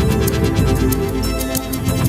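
Background music: electronic music with a steady beat and sustained tones.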